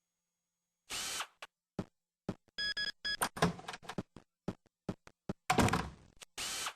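Cartoon-style sound effects from a Microsoft Agent character's exit animation: a quick string of clicks and knocks, with a short run of beeps a little before the middle and two louder whooshing bursts, one about a second in and one near the end.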